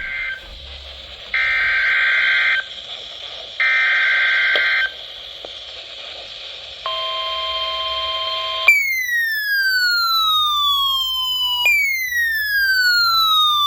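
Weather radio alert: three short bursts of warbling SAME data tones over radio hiss, typical of a NOAA Weather Radio alert header, the first already under way. A steady alert tone follows about seven seconds in, then a siren-like alarm tone that falls in pitch over about three seconds and repeats, signalling a severe thunderstorm watch.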